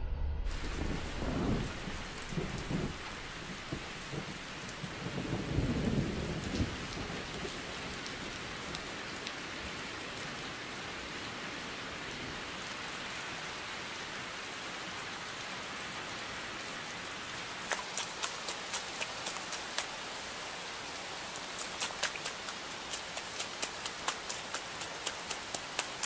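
Steady heavy rain, with two low rumbles of thunder in the first few seconds. In the last third a run of regular sharp taps, a few a second, comes through the rain.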